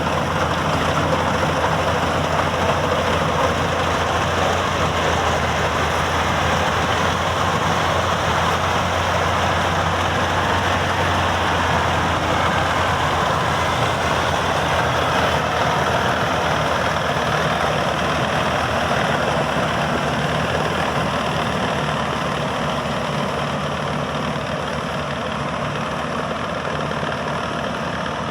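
Maxxi Bimo 102 Top combine harvester running steadily: a continuous engine and machinery drone with a low hum underneath, easing off slightly over the last third.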